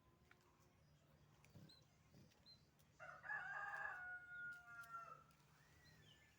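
A rooster crowing once, about three seconds in, for about two seconds, the call falling away at the end. Faint high chirps of small birds come and go around it.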